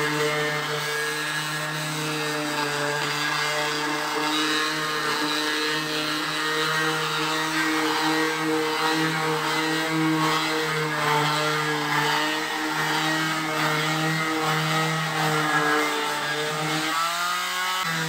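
Corded electric palm sander running steadily, its pad rubbing sandpaper over pine (palochina) boards: a constant motor hum with a grainy hiss. The hum wavers briefly near the end as the sander is moved to another board.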